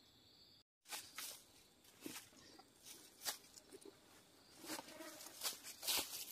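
Footsteps crunching on dry leaf litter and brushing through undergrowth, irregular steps that grow louder and closer together toward the end. Just before them, a faint steady insect drone cuts off abruptly.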